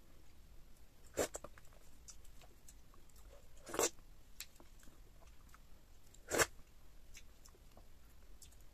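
Close-miked eating sounds of slimy ogbono and okra soup scooped with the fingers into the mouth: three short, loud wet mouth sounds about two and a half seconds apart, with faint smacks and clicks between.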